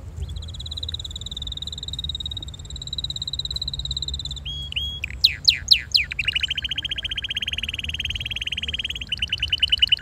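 Red canary singing a continuous song of rapid trills: a long rolling trill, a few short notes and four loud downward-sweeping whistles about five seconds in, then fast repeated-note trills. The song changes to a new trill about a second before the end.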